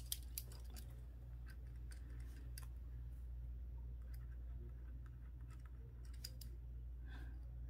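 Faint scratching of a retractable pen writing on a sheet of paper, with a few light ticks and taps, over a steady low hum.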